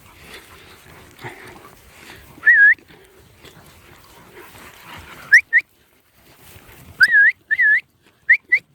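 A handler's short herding whistles to working cow dogs: one brief swooping whistle note, then a quick run of similar short whistle notes in the last few seconds.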